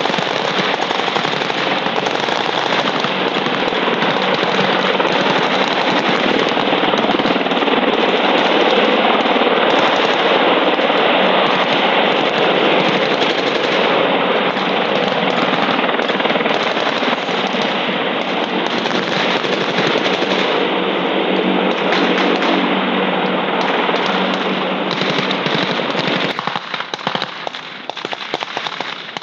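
A loud, dense, continuous rapid noise over a steady low hum, which breaks about 26 seconds in into separate bursts of rifle and machine-gun fire.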